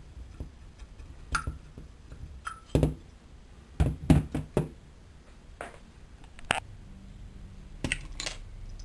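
A series of irregular light knocks and clicks, with the busiest cluster a little under halfway through. A faint steady low hum comes in near the end.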